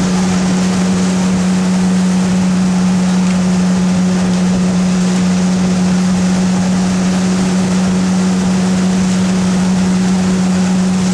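Outboard motor of a coaching launch running at a steady speed: a constant drone, with a wash of water and wind noise over it.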